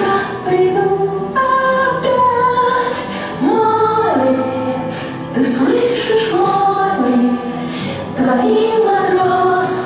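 A song with voices singing together, holding long notes and sliding between them, over backing music.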